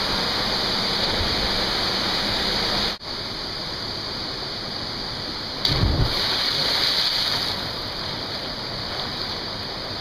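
Steady rush of a waterfall pouring into a rock pool, with one loud splash a little before six seconds in as a jumper hits the water feet-first from the cliff.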